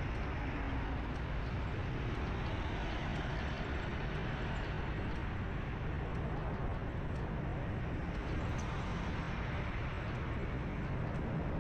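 Steady street-traffic and road noise heard from a moving vehicle: a low engine hum under an even hiss of tyres and passing traffic, with no single event standing out.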